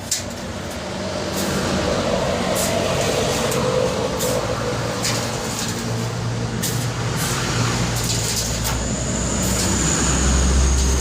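Truck engine running steadily, its low note growing louder about nine seconds in, with scattered knocks and scrapes over it.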